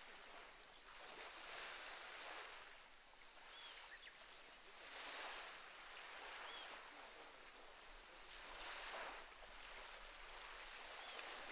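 Gentle sea waves washing onto a rocky shore, faint, each wash swelling and fading every three to four seconds, with a few faint high chirps.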